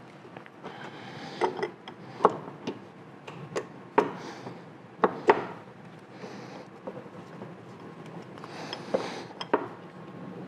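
Metal parts knocking and clicking as a painted shifter assembly is worked by hand into place inside a Monarch lathe's gearbox housing: about ten irregular sharp clinks, the loudest around two, four and five seconds in, with light scraping and rubbing between.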